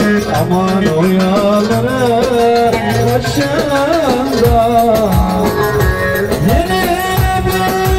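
Live folk dance music played loud through a PA, with an electronic keyboard under the canopy: a sliding, ornamented melody over steady low held notes.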